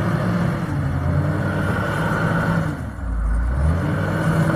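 Vehicle engine running hard under load, straining to pull free after getting stuck. About three seconds in the note sinks low for under a second, then picks up again.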